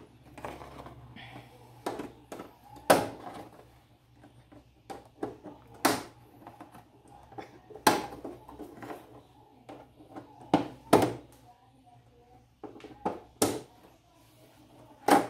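Plastic clips of an LCD panel's frame snapping loose one after another as they are pried up by hand and with a small screwdriver: about eight sharp clicks, one every one to three seconds, with faint rubbing and handling of the plastic between them.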